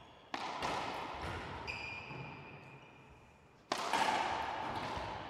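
Two sharp racquetball hits in the court, one about a second in and one near the end, each ringing out with a long fading echo.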